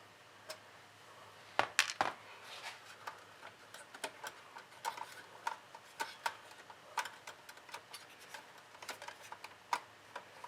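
Phillips screwdriver backing a screw out of a metal plate inside a small desktop PC case: faint, irregular clicks and ticks of the tool and metal parts, with a few louder clicks about two seconds in.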